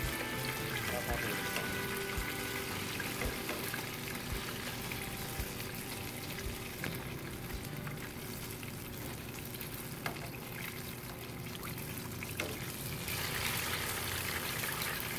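Banana fritters deep-frying in a pot of hot oil: a steady sizzle and crackle that grows louder and brighter near the end, with a few light clicks as metal tongs turn the pieces. Background music fades out in the first few seconds.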